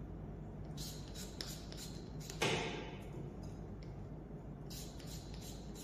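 A finger-pump spray bottle of detangler spraying once, a short hiss about two and a half seconds in, with a few faint clicks and rustles before and after.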